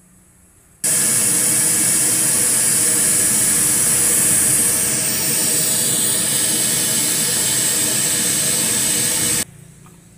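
Loud, steady hiss of a test-noise signal played through a new twin-woofer speaker cabinet for a frequency-response measurement. It switches on abruptly about a second in and cuts off suddenly near the end.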